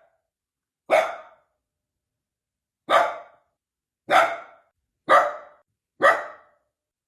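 A dog barking five times, single sharp barks spaced about one to two seconds apart.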